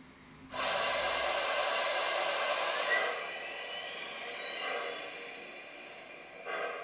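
An MTH Premier Proto-Sound 3.0 O-scale NKP 765 Berkshire model locomotive playing its steam start-up sounds through its speaker. A loud steam hiss starts abruptly about half a second in and eases after about three seconds into a quieter hiss with a rising whine, then a short burst of hiss comes near the end.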